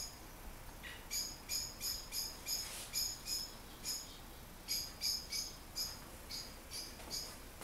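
Short, high-pitched animal chirps repeated in quick runs of two or three a second, then more irregularly, over a faint steady background hiss.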